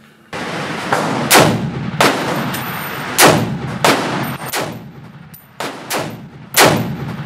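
Springfield Armory Saint Victor .308 AR-10 pistol with a muzzle brake, fired as a string of heavy shots roughly a second apart, each followed by a long ringing echo in an indoor range.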